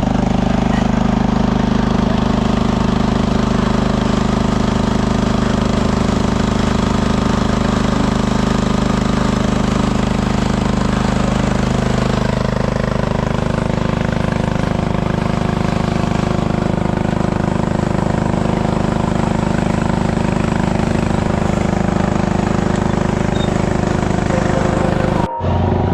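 Tractor engine running steadily, its note shifting about halfway through, with a brief cut-out near the end.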